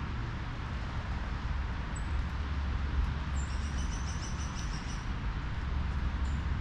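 Small songbird giving a quick series of high, repeated chirps for under two seconds, with single short high chirps a little before and after, over a steady low background rumble.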